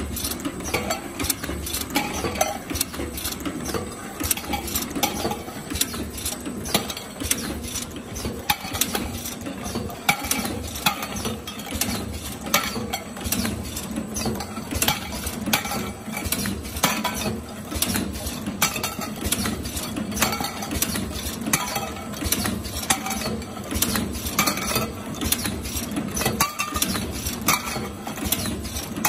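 Automatic can seaming machine (FH-FLV30) running: a steady mechanical hum with frequent metallic clicks and clinks as tin cans ride the conveyor into the seaming head.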